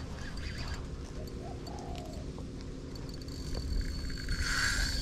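Birds calling over a steady low rumble, with a short curved call about two seconds in and a louder rushing noise near the end.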